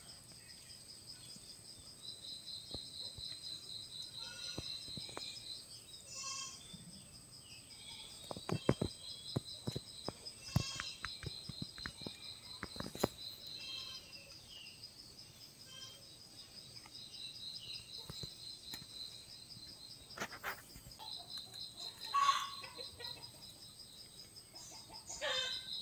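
Quiet outdoor ambience: insects trilling in a steady high pulse, with a few bird calls and scattered sharp clicks and knocks, most of them in the middle.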